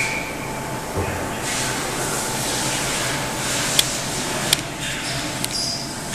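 KBA Rapida 105 sheetfed offset printing press running with a steady mechanical hum and rush, with three sharp clicks in the second half.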